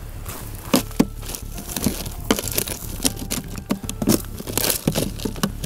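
Water-drenched pistols being set down into dry ice in a cooler: an irregular run of clicks, knocks and crunching from the metal and the dry ice, with a few brief squeaks.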